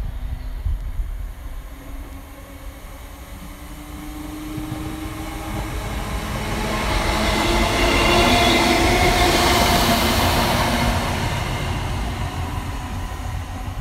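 A train passing the station platform: its rumble and whine build over several seconds, peak about eight to ten seconds in, then fade away.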